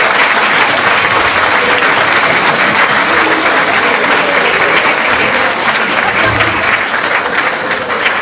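Theatre audience applauding, dense steady clapping that eases off slightly near the end.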